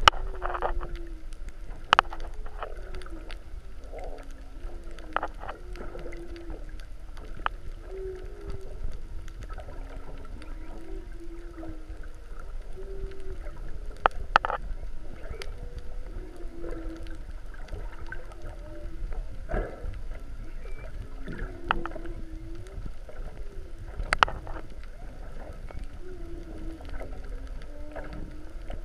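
Humpback whale calls heard underwater: a long series of short, wavering moans, one after another about every second, over a steady low rumble, with a few sharp clicks scattered through.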